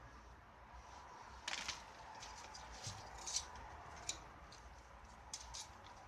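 A few light clicks and short scrapes of small hard parts being handled, against a faint steady hum.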